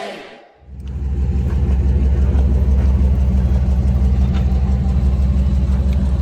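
Music fades out in the first half second. Then an off-road 4x4's engine runs steadily with a low rumble.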